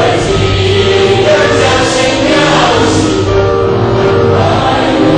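Added background music with choral singing and long held notes, at a steady, loud level.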